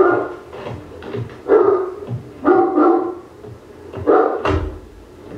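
A dog barking, four barks spaced roughly a second apart.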